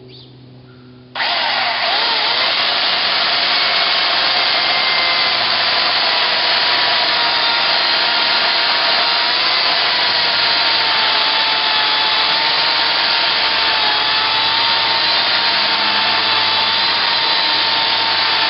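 Ryobi 18-inch corded electric chainsaw switching on abruptly about a second in, with no pull-start, and running steadily as it cuts a 6 to 7 inch log. Its motor and chain make a loud whine that dips slightly in pitch partway through.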